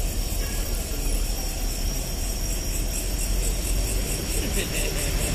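Steady low rumble of road traffic engines, with crickets chirping in an even pulse.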